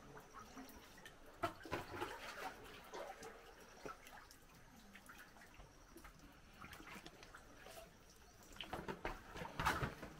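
Quiet water sounds of a paddled sea canoe: paddle dips, small splashes and drips, scattered and irregular, with a busier patch of splashing near the end.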